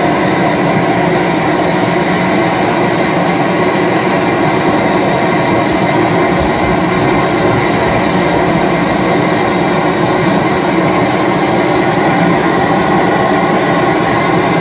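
Large single-cylinder Fairbanks-Morse stationary engine running steadily.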